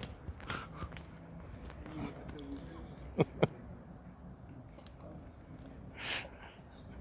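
A dog sneezing twice in quick succession about three seconds in, which is put down to its having eaten pepper. Crickets chirr steadily in the background.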